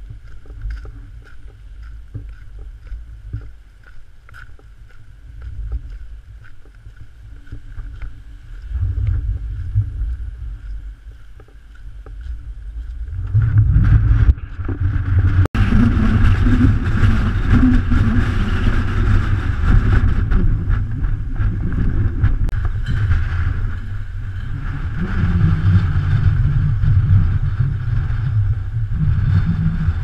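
Strong typhoon wind buffeting the microphone: a low, rumbling noise that grows much louder about halfway through and stays loud.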